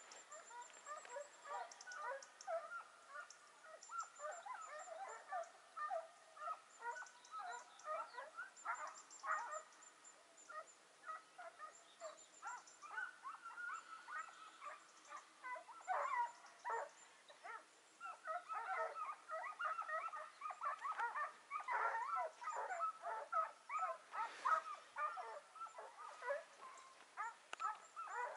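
A pack of scent hounds giving tongue on a hare's trail: many short, overlapping yelps and bays without a break, growing busier and louder about halfway through.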